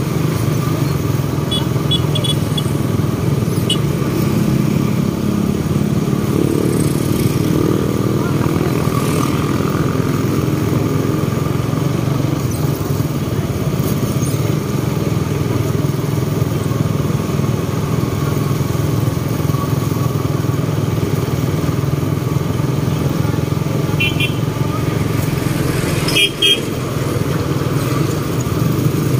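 Small motorcycle engines running steadily at cruising speed in a convoy, heard from a moving motorcycle. A few short high beeps come near the start and again near the end.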